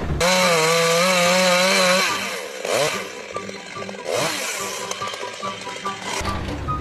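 A small motor running at high, slightly wavering speed for about two seconds, then rougher, noisier machine sound with a few brief swoops in pitch.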